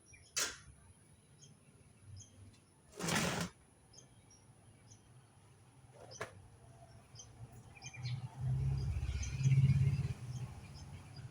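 Faint bird chirps in the background, with a sharp click near the start, a half-second hiss about three seconds in, another click around six seconds, and a low rumble from about eight seconds in.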